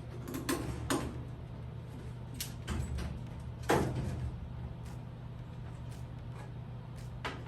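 Irregular knocks and clunks of the kitplane's tailcone assembly being handled and set back down, the loudest a little before the middle, over a steady low hum.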